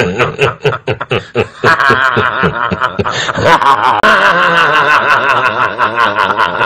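A man laughing loudly: quick short bursts of laughter in the first second or so, then longer drawn-out laughs.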